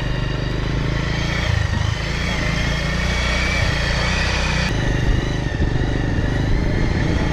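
A road vehicle's engine running steadily while riding along a road, with an abrupt change in the sound about two-thirds of the way through.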